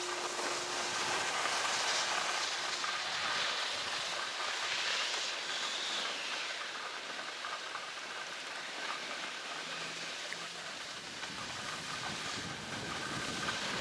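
Steady scraping hiss of board edges sliding and carving over groomed snow on a downhill run.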